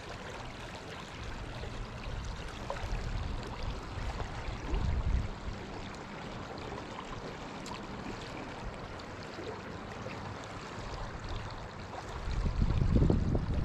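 Shallow river water running steadily, with low rumbling gusts of wind on the microphone, the strongest near the end.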